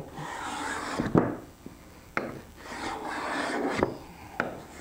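Veritas cabinet scraper pushed along a wooden board in three rasping strokes, its blade taking off thin shavings. Short knocks come between the strokes.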